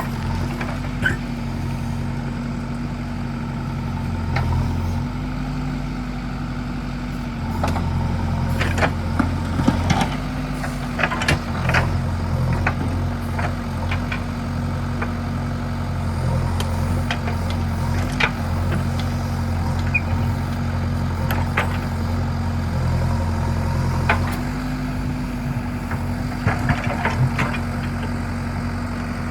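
Diesel engine of a JCB backhoe loader running steadily under work, its note shifting slightly now and then. Sharp clanks and knocks come in clusters, about a third of the way in and again near the end.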